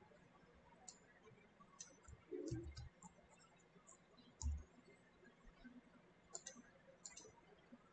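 Faint computer mouse clicks and keyboard key presses, scattered and sometimes in quick little clusters, while text is being edited. Two dull low thumps come about two and a half and four and a half seconds in; the second is the loudest sound.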